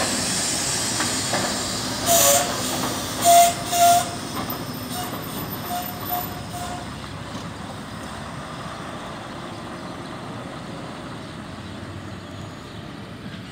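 Volvo truck with a loaded grain tipper semi-trailer driving past and away, its engine and tyre noise fading steadily. About two to four seconds in come three short hisses and a few brief squeals, typical of truck air brakes.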